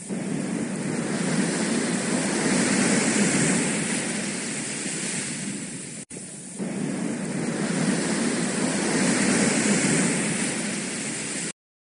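Rushing whoosh sound effect of a logo intro, a steady noise without any tone that swells and eases in two long waves. It drops out for an instant about six seconds in and cuts off abruptly just before the end.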